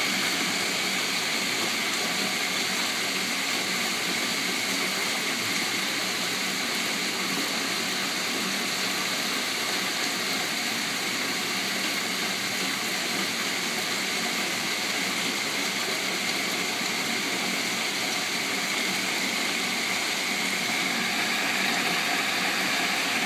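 Heavy hailstorm with driving rain: a dense, steady hiss of hailstones and rain pouring down.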